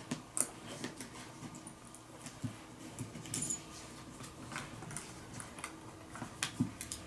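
Leather straps on a wooden paint box being unbuckled by hand: faint, scattered small clicks and rubbing.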